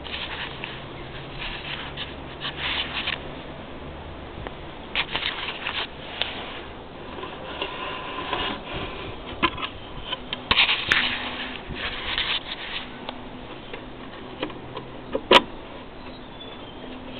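Irregular rustling and scraping handling noises as the wooden clock case and camera are moved about, in several clusters, with one sharp click about fifteen seconds in.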